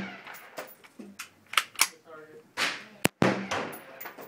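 .22 rifle shots: about half a dozen sharp cracks at irregular intervals, some louder than others, each with a short echo after it.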